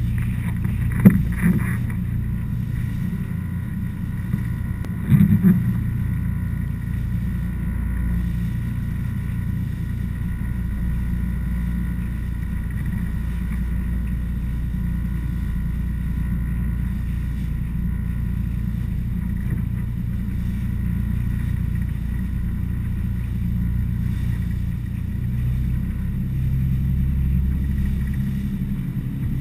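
Motor yacht running under way: a steady low engine drone with the rush of water along the hull. A sharp knock comes about a second in, and a few more about five seconds in.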